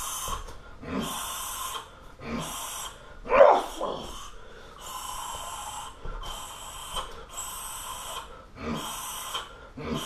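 Sharp, hissing exhalations from a Muay Thai fighter, one with each kick, coming roughly once a second. A louder voiced grunt comes a little over three seconds in.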